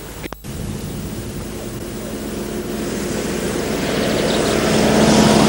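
After a brief dropout, an engine starts droning steadily at one pitch and grows louder throughout, as if coming closer.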